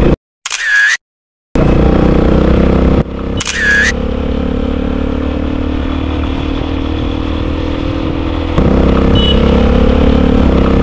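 A vehicle engine running steadily on the road, heard from on board. The sound cuts out briefly just after the start, and two short sweeping whooshes come about half a second and about three and a half seconds in.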